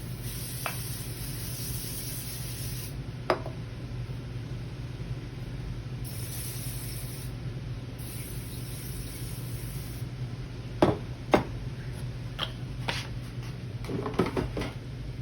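A few light clicks and knocks from handling a glass baking dish and kitchen things, over a steady low hum.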